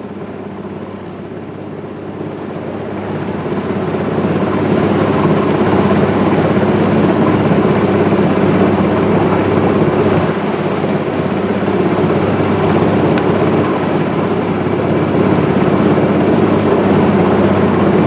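Boat motor running under way, with rushing water and wind noise; it picks up power a few seconds in and then holds a steady speed.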